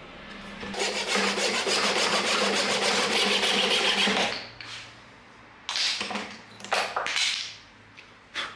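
A file rasping a wooden handle clamped in a bench vise: about three seconds of quick back-and-forth strokes, then a few separate strokes near the end.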